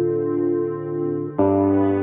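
Background music: soft electric-piano and synthesizer chords, held, with a new chord struck about one and a half seconds in.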